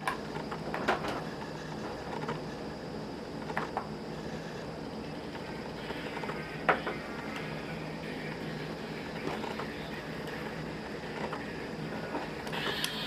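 Music playing faintly through the repaired Nintendo DS clip-on earpad, fed from an iPod Classic, with a few soft handling clicks.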